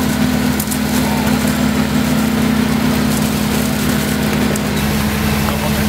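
Concrete pump's engine running steadily with a constant low hum.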